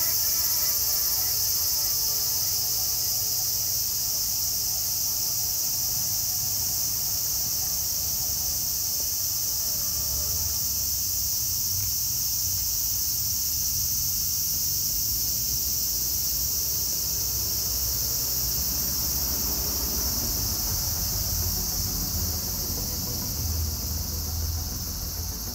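Cicadas shrilling in a steady, unbroken chorus from the trees, with a low rumble underneath.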